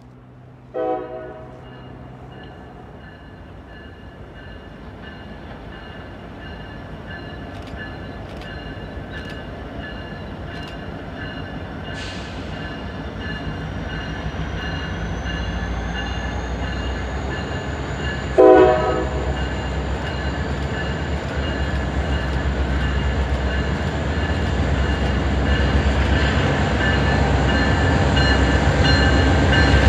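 Approaching Norfolk Southern diesel train, its rumble growing steadily louder. The locomotive's air horn sounds two short blasts, one about a second in and a louder one about eighteen seconds in.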